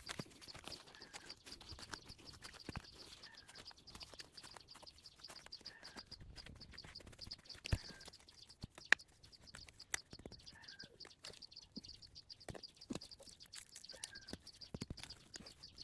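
Faint outdoor ambience: a steady, rapidly pulsing high trill throughout, with a short bird chirp repeating about every two and a half seconds. Scattered light clicks and rustles run under it, with one sharper knock about nine seconds in.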